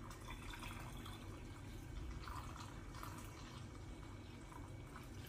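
Green tea being poured through a cloth tea-straining bag into a glass pitcher: a faint, steady trickle of liquid.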